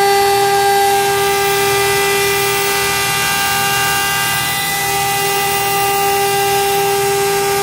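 CNC router (Jieke 1325A) spindle running with a steady high whine and a low background hum.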